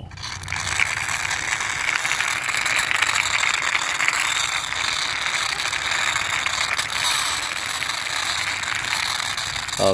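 Plastic toy car pushed by hand along rough stone, its wheels and running gear giving a steady, fast clicking rattle.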